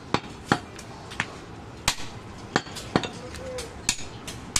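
Heavy butcher's cleaver chopping a goat leg on a wooden log chopping block: about eight sharp, separate blows, spaced roughly half a second to a second apart.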